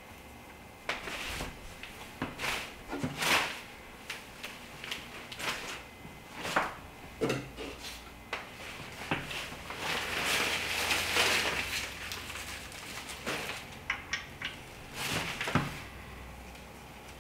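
Handling noise from adjusting a clamshell reflector on its light-stand mount and tightening a plastic wing nut: scattered clicks and knocks, with a longer rubbing noise about ten seconds in.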